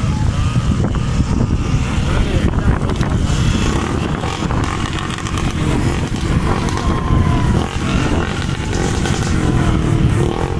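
Motorcycles running along a road in a group, heard from a moving motorcycle, with steady wind rumble on the microphone.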